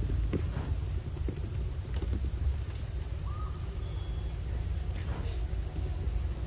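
Forest insects, crickets or cicadas, droning steadily at two high pitches over a constant low rumble. There are a few faint clicks and one short soft chirp about three seconds in.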